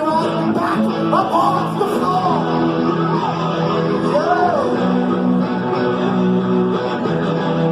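Live rock band playing, with guitars over held low notes. In the first few seconds a melody line slides up and down in pitch.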